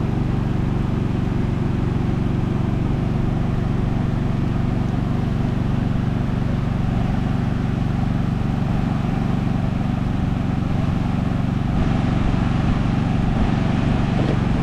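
Steady low mechanical drone of a running machine, with a little more hiss in the upper range near the end.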